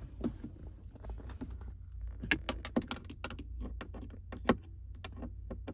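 Irregular sharp plastic clicks and taps from handling a 2004 Acura TSX's newly fitted center console lid, the loudest about halfway through.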